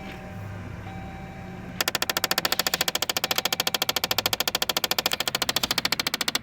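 A Dodge Journey's heater/AC door actuator behind the glovebox clicking rapidly and evenly for about five seconds, starting nearly two seconds in, over the low idle hum. Its gear is skipping because a small plastic pivot base inside has broken.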